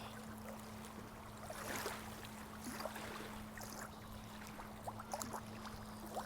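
Running water trickling and bubbling, with many small splashes and gurgles over a faint steady low hum.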